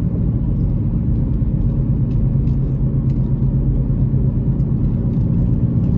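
A car driving, heard from inside the cabin: a steady low rumble of engine and road noise with a few faint ticks.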